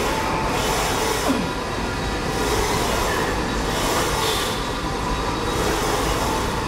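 Steady mechanical rumble and hiss of gym machinery, with the hiss swelling and fading every second or so.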